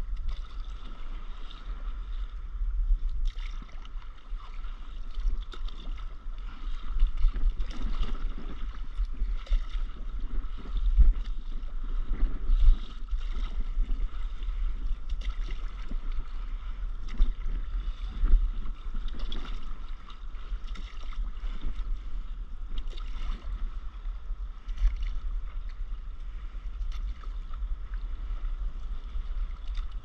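Stand-up paddle strokes in calm sea water, a short splash every second or two as the blade dips and pulls, under steady wind buffeting the microphone.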